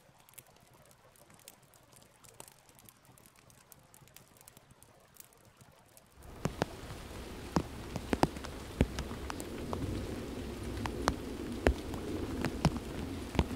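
Near quiet for about six seconds, then rain starts abruptly: a steady patter with sharp individual drops striking a surface close by.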